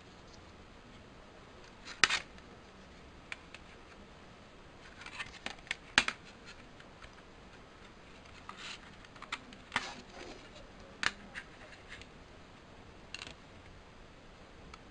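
Clear plastic CD jewel case being handled and opened on a wooden table: irregular plastic clicks, taps and light scrapes, with a cluster of them midway.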